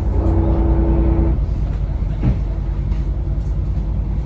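A yacht's engines running with a deep, pulsing rumble, with a steady tone sounding over it for about the first second.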